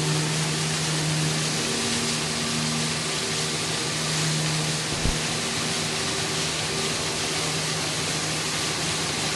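A liquid-manure tanker spraying slurry: a steady rush of spraying liquid over the even hum of the engine driving it, with one short knock about five seconds in.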